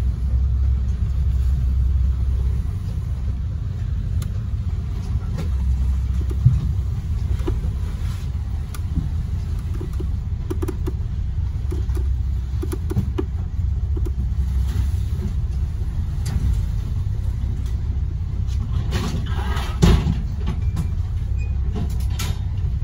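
Steady low rumble heard aboard a boat under way on choppy water, from its engine and the wind, with a brief louder rush of noise about 19 to 20 seconds in.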